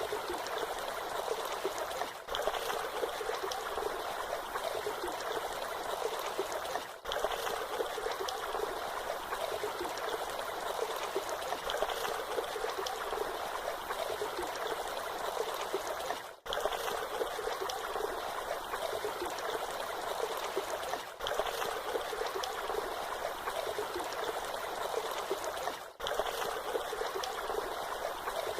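Waterfall: a steady rush of falling, splashing water, with a brief dip in level every few seconds.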